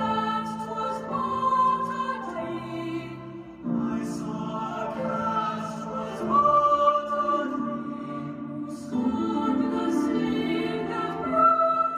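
Music with singing voices holding long, sustained notes, several pitches sounding together.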